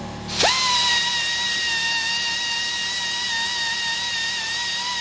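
Central Pneumatic 3/8-inch air belt sander starting up about half a second in, its whine climbing fast to a steady high pitch over a hiss, then running steadily as it grinds down a weld bead on a steel rifle receiver.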